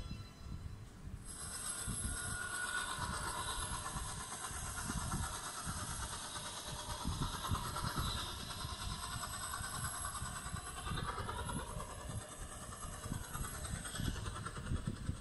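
A sound-effects test track playing through a Lenovo Miix 510's small built-in laptop speakers: after a brief lull, a continuous rushing noise with hiss and uneven low rumbling comes in about a second in and carries on steadily.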